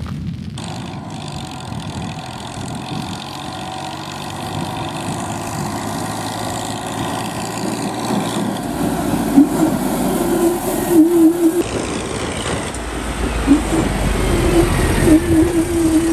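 Eicher farm tractor's diesel engine running as the tractor drives along with a loaded trolley, with a wavering higher tone that comes and goes in the second half.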